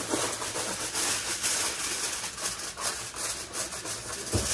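Aluminium foil crinkling and scraping as it is pressed and crimped down over the rim of a disposable foil roasting tray, a continuous run of short scratchy crackles.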